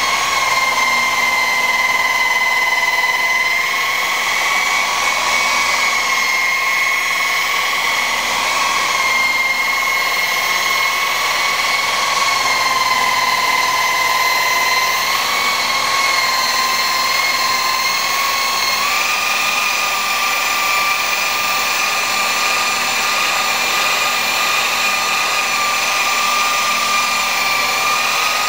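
Electric rotary polisher with a foam buffing pad running steadily against car paint, a high whine whose pitch steps up or down slightly several times as the pad is worked across the panel.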